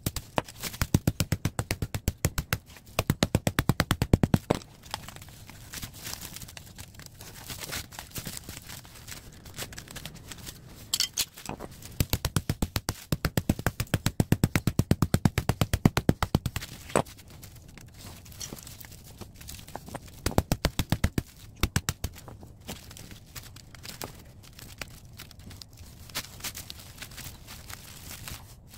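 Hammer beating the crushed aluminium fins of a scrap copper-tube radiator, knocking the fins off the tubes in several runs of quick metallic blows with pauses between.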